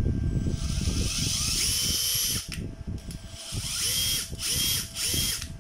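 Makita TD137 14.4 V cordless impact driver run free in short trigger pulls while its functions are tested: the motor whines up to speed and stops, four times, the last three in quick succession near the end.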